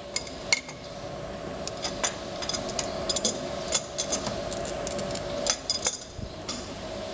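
Scattered light metallic clicks and clinks of hands working a steel tape measure around the metal rollers of a roll slitting machine, over a steady machine hum.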